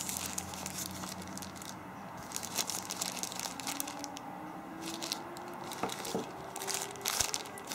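Crinkling and rustling of packaging as a smartphone's boxed accessories are handled and unwrapped, in irregular short crackles.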